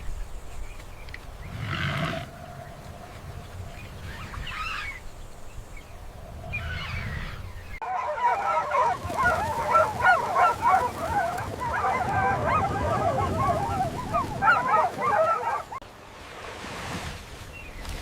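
Wild animal calls: a few scattered calls at first, then from about eight seconds in a dense chorus of many overlapping chattering calls that lasts several seconds and stops abruptly.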